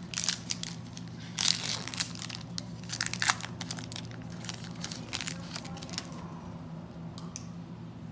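Foil-lined trading-card pack wrapper being torn open and crinkled by hand: a quick run of sharp tearing and crinkling crackles, loudest in the first few seconds, then thinning out to a few softer crinkles.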